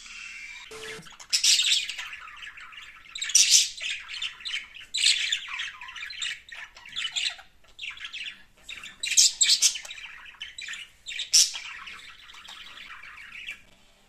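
Pet budgerigars chattering and squawking: a long run of scratchy warbles and squawks, loudest in a few sharp outbursts, that fades out just before the end.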